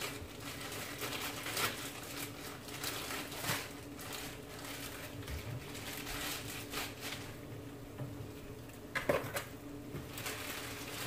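Light rustles and knocks of dried red herring being handled in a plastic bowl, a brief louder clatter about nine seconds in, over a steady low hum and the bubbling of a pot of water at a boil.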